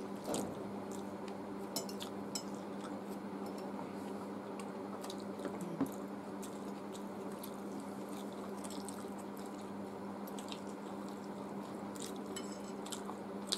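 Noodles being eaten from glass plates: scattered light clicks of a metal fork against the plate and soft wet chewing and squishing of chowmein, over a steady low hum.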